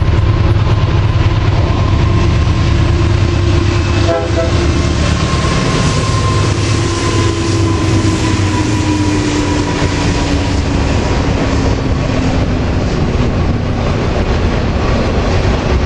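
Freight train passing close at speed: the diesel locomotives' heavy rumble goes by in the first few seconds, with a held two-note tone that drops in pitch as the head end passes. Then the rush and rattle of the autorack cars' wheels on the rails.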